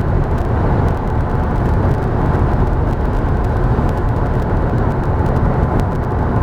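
Steady low road noise of a car at highway speed, heard from inside the cabin: tyre rumble and engine hum with no change in speed.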